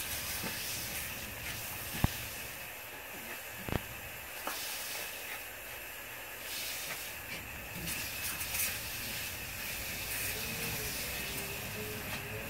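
Lawn sprinkler spraying water with a steady hiss that swells and fades as the spray moves. Two sharp clicks come about two seconds and three and a half seconds in.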